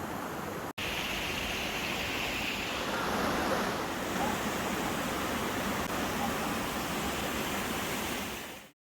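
Steady rush of flowing water from a river or small waterfall. It cuts out for an instant about a second in, then runs on.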